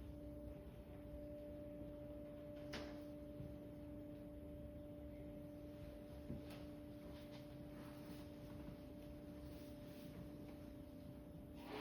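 Crystal singing bowl ringing with a steady, pure held tone and a fainter higher tone above it, with a few soft clicks.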